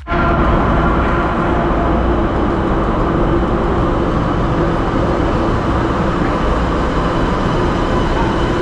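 Metro train pulling into the station and running slowly along the platform: a steady rumble with a few faint steady whining tones from its motors.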